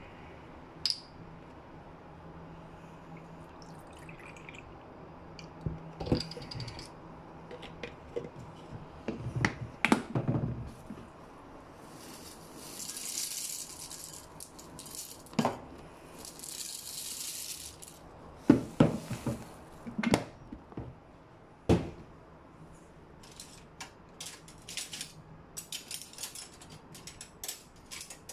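Cornflakes pouring from a plastic cereal container into a ceramic bowl: two dry rattling rushes a couple of seconds each, about halfway through. Knocks and clicks of the container and bowl being handled come before and after the pours.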